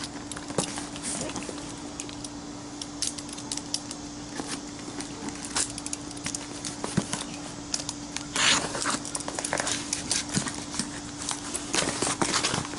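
Packaging being handled and unwrapped: rustling and crinkling with scattered clicks and taps, louder crinkling bursts about eight and twelve seconds in, over a steady faint hum.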